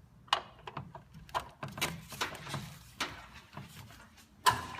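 Irregular clicks, clanks and short scrapes of a ratchet driving a stacked chain of extensions, an adapter and a socket on an old bolt, with a sharp knock near the end.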